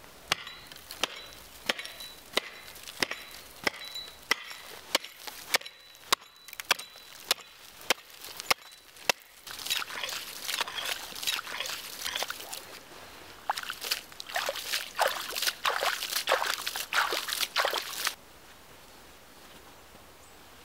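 A hatchet chopping a hole in ice. It starts with sharp, evenly spaced blows, about three every two seconds. From about halfway the blade hits water and slush in the opened hole, giving wetter, splashing chops that stop suddenly a couple of seconds before the end.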